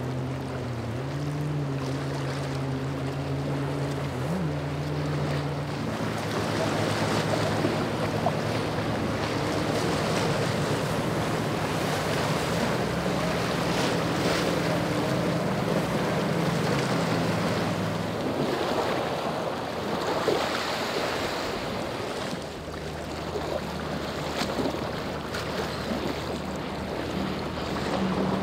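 Boat engines running as the boats motor through choppy water, over the steady wash and splash of the waves and wind buffeting the microphone. The engine hum fades out about two-thirds of the way through and returns more weakly later.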